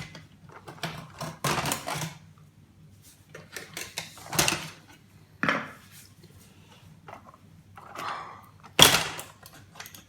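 Clattering, knocking and scraping of an old electric typewriter's plastic and metal parts being pried apart by hand, in irregular bursts, with the loudest knock near the end.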